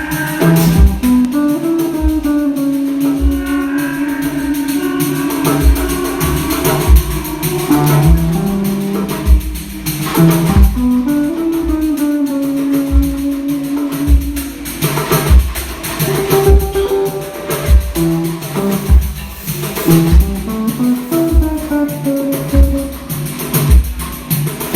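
Music: a plucked guitar melody over a steady drum beat.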